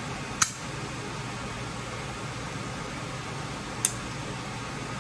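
Steady fan-like hum with two sharp clicks about three and a half seconds apart.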